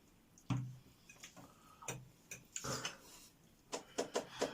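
Cutlery clicking and scraping against plates during a meal, in scattered irregular taps, several close together near the end.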